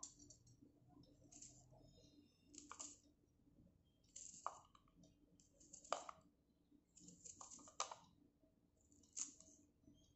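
Knife slicing through a peeled red onion held in the hand: faint, crisp cuts at intervals of one to two seconds.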